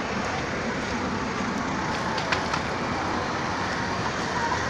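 Steady street traffic noise, a continuous hum of vehicles, with a brief sharp click a little over two seconds in.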